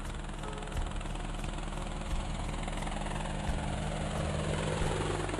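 Helicopter sound effect: a steady whirr of rotor and engine, getting a little louder toward the end as the helicopter comes in.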